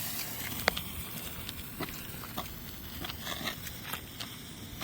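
A smoke bomb's fuse being lit: scattered small clicks and crackles over a steady faint hiss.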